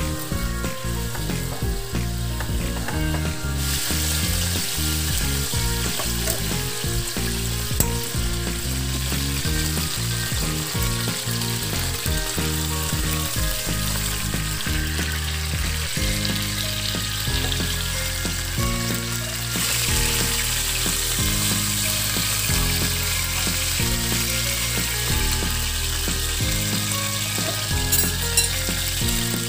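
Whole chicken searing in hot oil in a nonstick frying pan, sizzling steadily, louder from a few seconds in, with occasional clicks and scrapes of metal tongs turning the bird.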